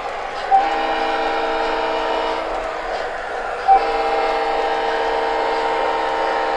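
MTH O scale model locomotive's sound system sounding two multi-note chord blasts over the steady running noise of the layout: a blast of about two seconds, then a longer one starting about a second later.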